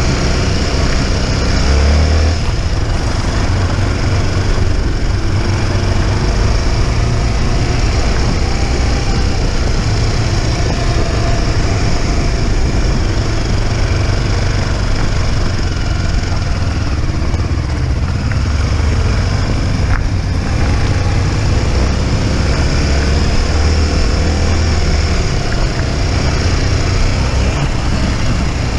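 Motorcycle engine running steadily under way, its pitch shifting a little with the throttle.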